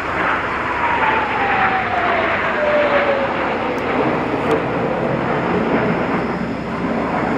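Blue Impulse Kawasaki T-4 jet trainers' turbofan engines roaring steadily overhead, with a whine that falls in pitch over the first few seconds as an aircraft passes.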